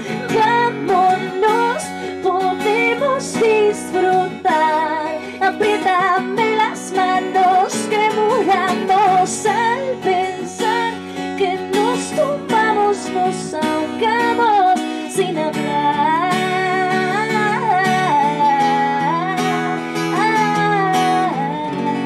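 Live song: a woman singing long, wavering melodic lines over a strummed acoustic guitar.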